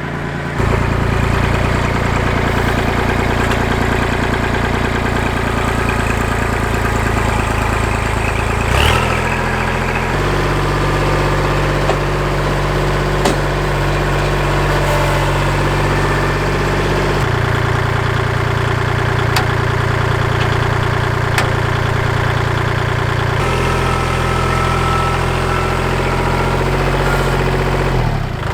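Kubota L2501 compact tractor's three-cylinder diesel engine running at idle, its pitch jumping abruptly to new steady speeds several times, with a few faint clicks over it.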